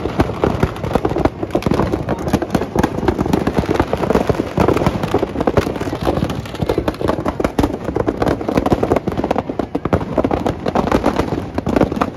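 Firecrackers packed in a burning Ravana effigy going off in a rapid, continuous crackle of many small bangs.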